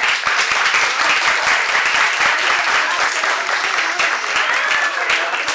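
Audience applause: many people clapping together, starting suddenly and holding steady.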